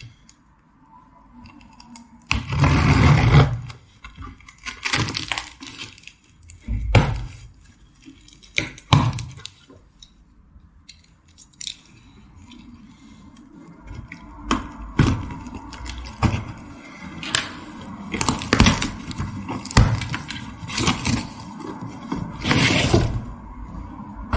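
A newly delivered tool set being unpacked: packaging torn open with a loud ripping noise, then scraping, rustling and thunks as the box and the cased tools are handled.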